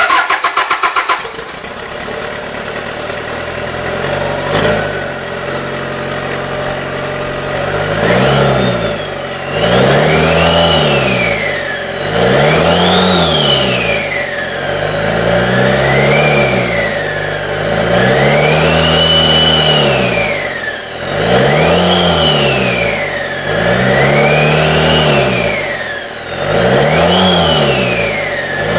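Rebuilt Toyota Hilux 2.8 turbo diesel cranking and catching about a second in, then running and being revved up and down over and over, about every three seconds, with a whine rising and falling with each rev.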